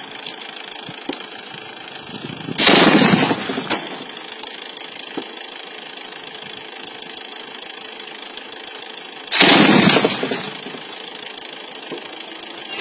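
Two loud bursts of weapon fire, about six and a half seconds apart, each starting sharply and dying away over about a second, over steady background noise.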